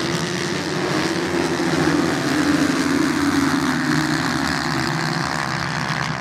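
A pack of motocross bikes racing on sand, several engines at high revs together. Their overlapping notes waver as the riders work the throttle.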